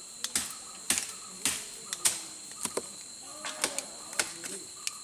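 Hand rice harvesting: a run of sharp, crisp strikes or snaps, irregular, about two a second, over a steady high insect buzz.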